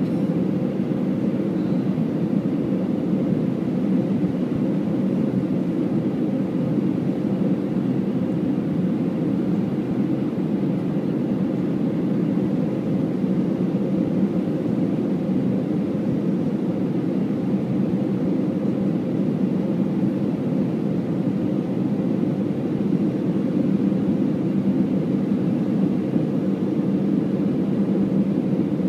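Steady cabin noise of an Airbus A319-114 on approach, heard from a window seat beside the wing: an even, low drone of the engines and the airflow, with a faint steady hum in it.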